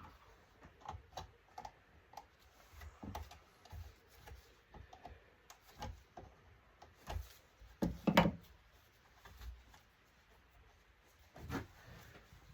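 Scattered light clicks and knocks of metal and plastic parts and hand tools being handled while an LCD monitor is taken apart, with a louder clatter about eight seconds in.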